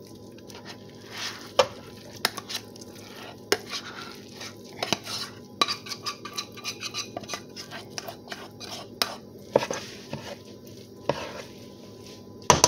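A spoon scraping and knocking against pans in irregular clacks as cooked rice is spooned from one pan into another.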